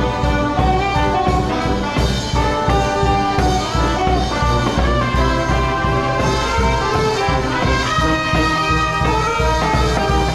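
Music with brass instruments over a steady, even beat.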